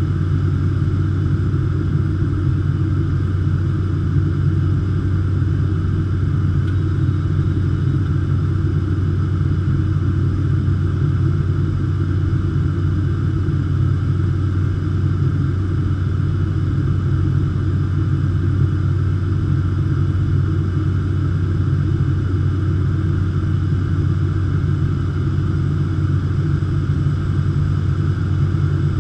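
Cessna 208 Caravan's single Pratt & Whitney PT6A turboprop engine and propeller, heard inside the cockpit as a steady low drone with fainter steady higher tones above it.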